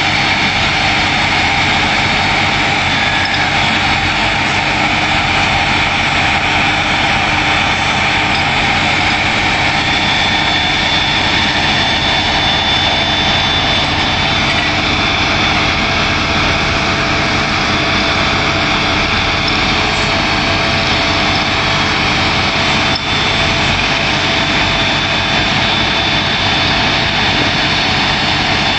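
A heavy engine running steadily at one unchanging speed, with a steady whine over it.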